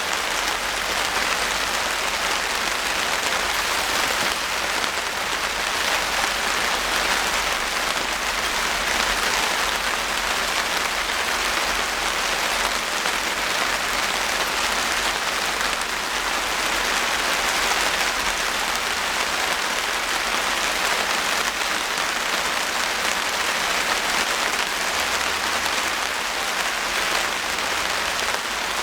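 Steady rain falling, countless drops striking surfaces in a dense, even hiss with fine pattering ticks.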